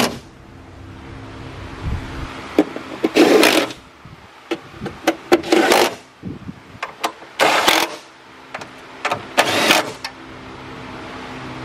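Cordless power driver running in four short bursts, driving 10 mm bolts down into a car's cowl cover, with sharp clicks between the bursts.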